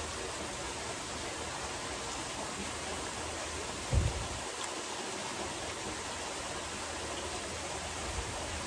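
Steady splashing of a swimming pool's rock waterfall, with one short low thump about four seconds in.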